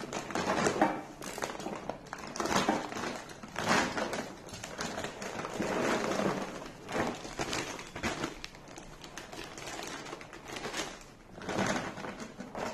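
A clear plastic packaging bag rustling and crinkling in irregular bursts as hands open and spread it, with the steel saddle-stay tubes inside shifting in it.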